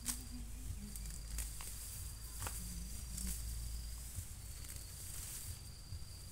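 Weeds being pulled and cut by hand in a garden bed: rustling foliage with a handful of sharp snaps and clicks, over a thin steady high insect trill.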